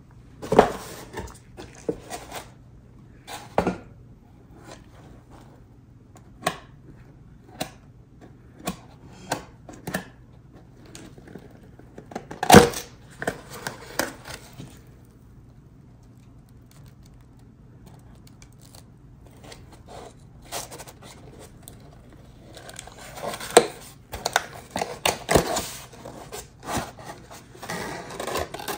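Takeout food packaging being handled: scattered sharp taps and knocks with rustling, the loudest knock about midway and a denser run of rustling and clatter near the end.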